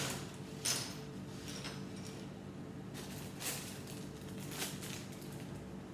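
Clear plastic parts bag of Lego Technic pieces crinkling as it is handled, in several short rustles.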